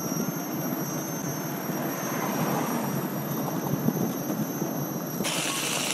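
Steady rush of wind on the microphone and tyre rumble from a KingSong 16S electric unicycle rolling along the street, with a thin steady high whine. About five seconds in the noise abruptly turns brighter.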